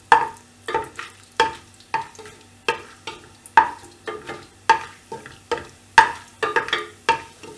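Wooden spoon stirring cashews and whole spices frying in ghee and oil in a metal pressure cooker, knocking and scraping against the pot about twice a second, with the oil sizzling faintly between strokes.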